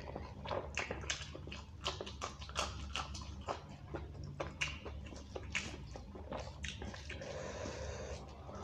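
Close-up eating sounds: a hand mixing rice and beef curry on a steel plate, and chewing, heard as a quick string of short clicks and smacks.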